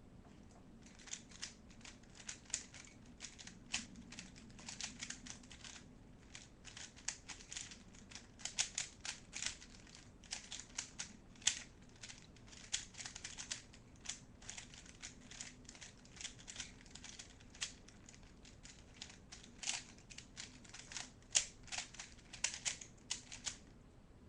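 Rubik's cube being turned quickly by hand: its plastic layers clicking and rasping in quick runs, with short pauses between runs.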